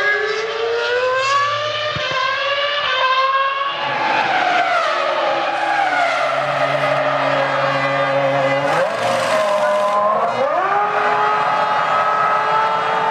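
Formula One cars' 3.0-litre V10 engines at high revs, the pitch climbing in steps through several quick upshifts, then dropping as the car slows for a corner, and rising again near the end as it accelerates away.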